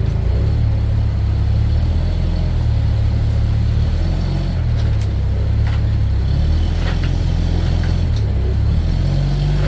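Large truck engine running with a steady low rumble, its pitch shifting in steps.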